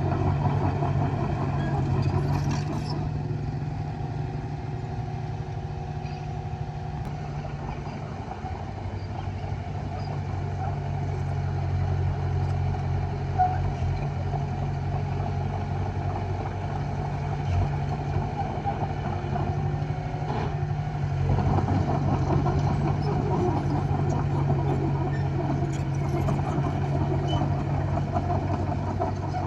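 Komatsu D20A bulldozer's diesel engine running under load while pushing soil, steady throughout, working harder for the first few seconds and again for several seconds past the middle.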